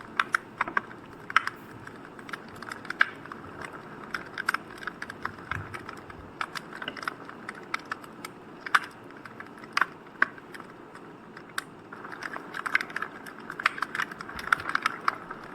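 Wood fire crackling: irregular sharp pops and snaps over a steady hiss, growing busier near the end.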